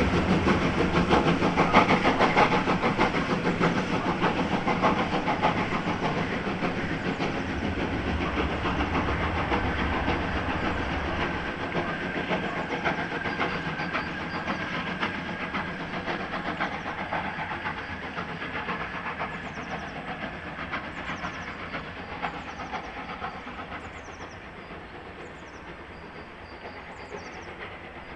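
Pt47 2-8-2 steam locomotive hauling a passenger train: exhaust chuff, steam hiss and rail noise, fading steadily as the train draws away.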